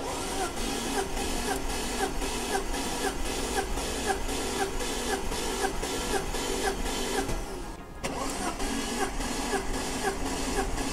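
BMW M54 straight-six turned over on its starter motor for a compression test, cranking in an even repeating rhythm without firing. The cranking stops briefly about seven and a half seconds in and starts again.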